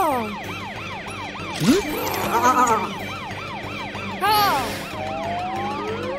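Cartoon police car siren in quick rising-and-falling sweeps, about four a second, with a few swooping sound effects and background music over it. Near the end it gives way to slower rising tones.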